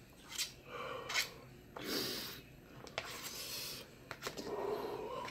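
A man breathing hard through his open mouth from the chili burn of spicy noodles: a few long breaths, with short clicks and scrapes of a metal fork against a plastic bowl in between.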